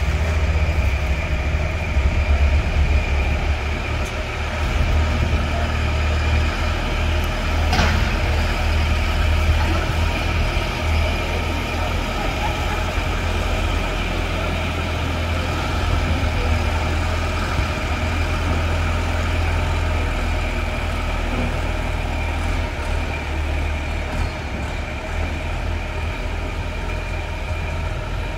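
Small aircraft tug's engine running steadily with a low drone and a faint whine.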